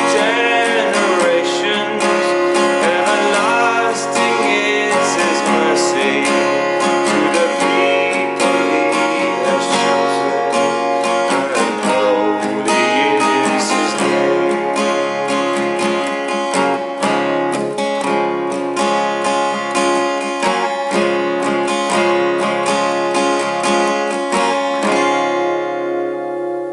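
Background music: acoustic guitar strumming and picking. It rings out and fades near the end.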